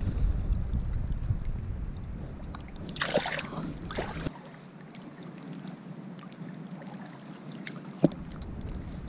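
Water sloshing and wind rumbling on the microphone as a snook is released by hand, with a splash about three seconds in as the fish kicks away. Then quieter lapping water and a single sharp click near the end.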